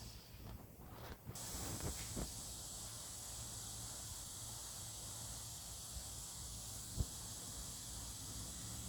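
Steady high hiss of insects, with a few short scrapes of digging in the first couple of seconds and a single thump about seven seconds in.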